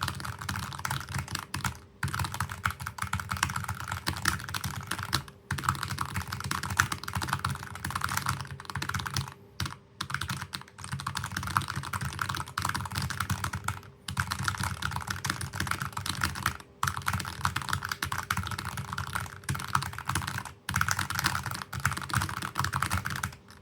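Very fast typing on a NuPhy Air60 HE Hall-effect keyboard with Jade Pro magnetic switches and Cherry-profile keycaps: a dense stream of key clacks, broken by about six pauses of well under a second. It stops just before the end.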